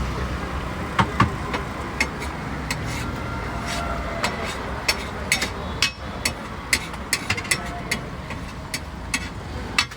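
Metal spatula clanking and scraping on a large iron tawa griddle in irregular sharp knocks that come thicker in the second half, over a steady rumble of road traffic.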